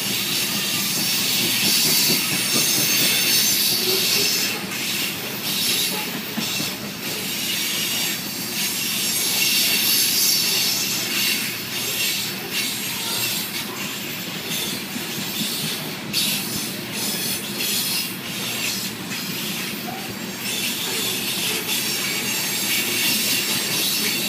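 Loaded coal hopper cars of a freight train rolling past, their steel wheels running on the rails in a steady, loud noise that is strongest in the high range, with short clicks now and then.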